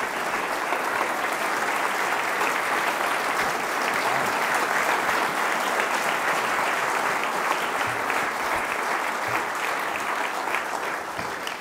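Audience applauding, a dense, steady clapping of many hands that begins to die away near the end.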